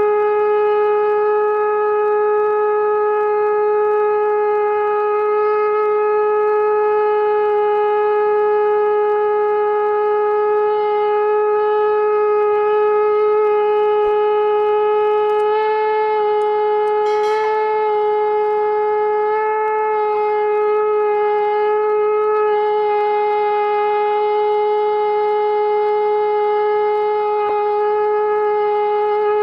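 Conch shell (shankh) blown in one long unbroken note, steady in pitch, with a few brief wavers about halfway through.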